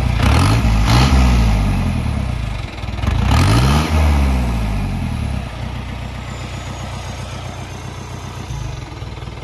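Mahindra jeep engine revved through a newly fitted SC Project aftermarket exhaust: two rising-and-falling revs, then it drops back to a steady idle about halfway through.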